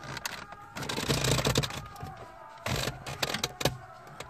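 Hands working plastic dashboard trim and brackets in a car's radio opening: a run of plastic clicks and small knocks, with a louder scraping rustle about a second in and a shorter one near three seconds.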